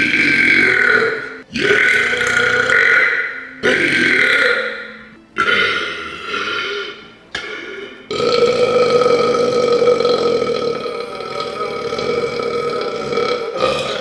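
A person belching loudly, a string of long drawn-out burps one after another with short breaks between them; the last one, about halfway through, is held for about five seconds.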